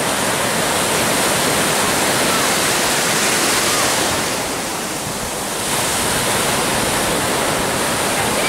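Ocean surf breaking and washing through the shallows: a steady rush of water that eases briefly about halfway through, then builds again.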